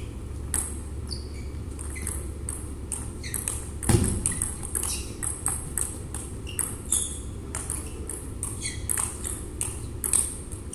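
Table tennis rally: the ball clicking off the bats and the table in a quick, irregular run of sharp ticks over a steady low hum, with one heavier thump about four seconds in.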